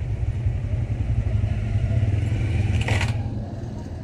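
Steady low rumble of a running engine, easing off near the end, with a brief clatter about three seconds in.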